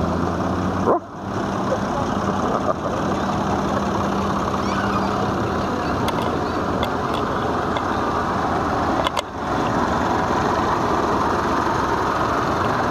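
Vintage farm tractor engines running as a slow convoy passes, a steady mechanical chugging with a low engine note in the first few seconds. The sound drops out sharply and briefly twice, about a second in and again near nine seconds.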